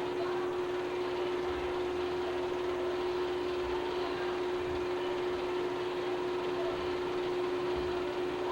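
Steady hum with one constant mid-low tone over an even hiss, unchanging throughout, with no distinct events.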